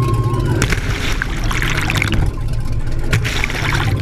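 Jet boat running through whitewater rapids: a steady engine rumble mixed with rushing, splashing water.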